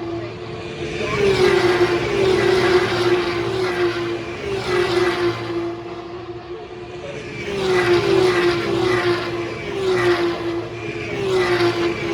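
BTCC touring cars racing past in groups, each engine note dropping in pitch as the car goes by, with several passes a few seconds apart.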